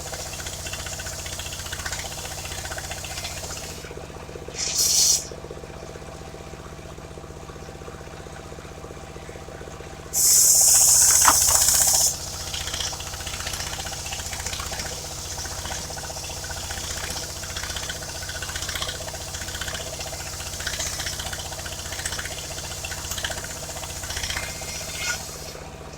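Engine of a portable circular sawmill running steadily, idling between cuts. Two loud hisses cut in over it, a short one about four seconds in and a longer one of about two seconds near the middle.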